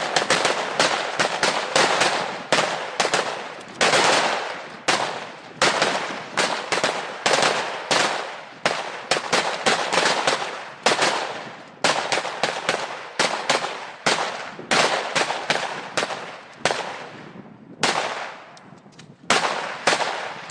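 Military rifles fired by several shooters at once: a rapid, irregular string of overlapping shots, each with a fading echo, several a second. The firing eases off briefly near the end before picking up again.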